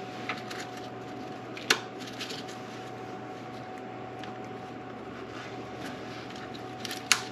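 Hands working on engine-bay parts, giving two sharp clicks or knocks, one about a second and a half in and one near the end, with faint small ticks between them over a steady low hum.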